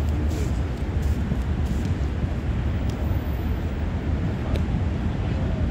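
Steady low outdoor rumble, with a few faint knocks.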